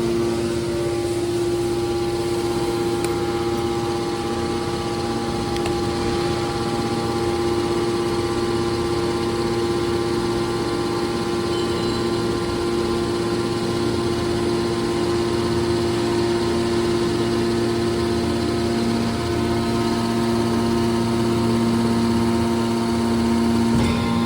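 Scrap copper baler's hydraulic power unit running, a steady machine hum with several fixed tones that holds unchanged.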